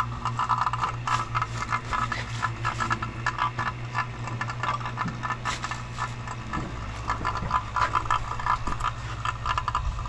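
Refrigeration vacuum pump running steadily with a fast rattling chatter over a constant motor hum, pulling a vacuum on a split air conditioner's refrigerant lines.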